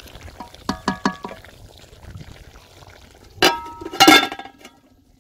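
Wooden spoon tapped several times against a large aluminium cooking pot, then the pot's aluminium lid set down on it with two ringing clanks, the second the loudest.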